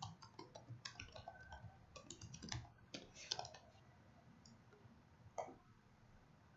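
Faint computer keyboard typing: a quick run of keystrokes for about three and a half seconds, then a single click a little past five seconds.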